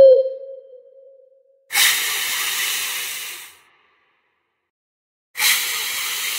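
Two bursts of hissing, each starting suddenly, lasting about two seconds and fading out, with near silence between them. A short pitched note that rises and then falls ends just as the first moment passes.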